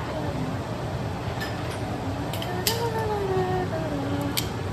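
Kitchen range hood fan running with a steady hum, with a few light clicks and clinks of cooking utensils.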